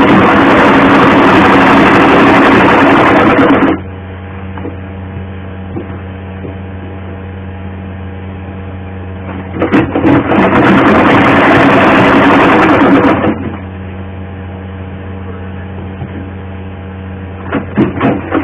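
Black domestic sewing machine stitching a seam in two runs of about three and a half seconds each, one at the start and one about ten seconds in, with a steady low hum underneath throughout.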